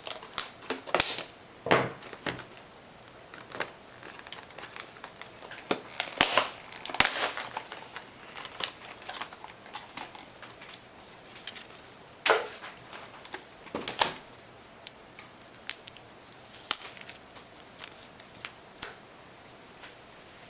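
Packaging of a cleaning kit being handled and opened by hand: irregular crinkles, rustles and sharp clicks, coming in scattered bursts.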